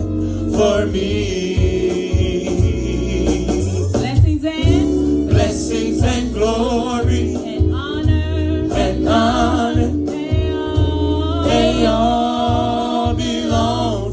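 Live gospel praise-and-worship song: a small group of singers with microphones sings over a bass accompaniment whose low notes change in steps, with percussion strokes running through.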